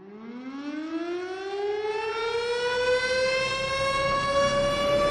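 A siren winding up from silence: one tone with many overtones rising smoothly from low to high pitch, the rise slowing as it goes, and growing steadily louder.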